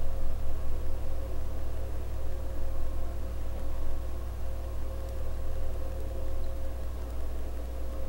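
Steady machine hum: a 2018 Mac mini's cooling fan running under benchmark load, with a strong low drone and a faint steady whine above it.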